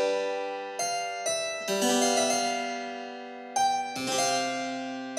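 Background keyboard music with a harpsichord-like tone: single notes and chords struck a few at a time, each left to ring and fade.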